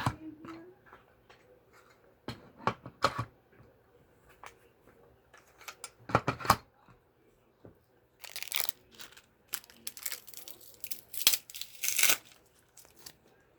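Hard plastic knocks and clicks as caster wheels are pushed into the sockets of an upturned plastic shop-vac bucket, then, from about eight seconds in, several seconds of plastic packaging crinkling and tearing.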